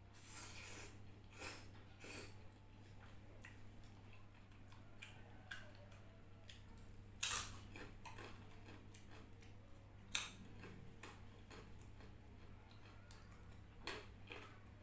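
Close-up eating sounds of a person chewing instant noodles: scattered wet clicks and mouth smacks, with two louder sharp sounds about seven and ten seconds in.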